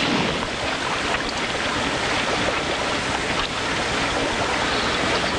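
Steady rushing noise of wind and water on an open fishing boat, with no single distinct event standing out.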